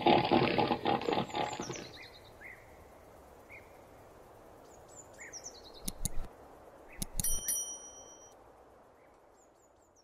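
A seal's harsh, pulsing call ends about two seconds in. Faint outdoor background with a few bird chirps follows. Near the end come two clicks and a ringing bell chime, a subscribe-button sound effect.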